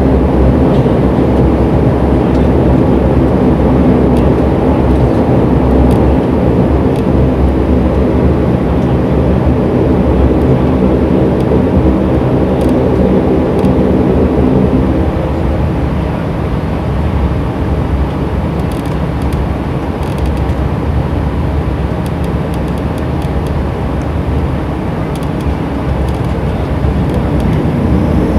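A Dash 8 Q400's Pratt & Whitney PW150A turboprop engines and six-bladed propellers running at taxi power, heard from inside the cabin beside the propeller. The steady drone carries a stack of humming tones, eases a little about halfway through, and builds again near the end.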